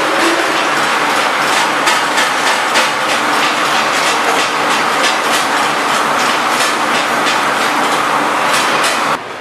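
Small candy flow-wrapping machine running: a loud, steady mechanical clatter with evenly repeating clacks. It cuts off abruptly near the end.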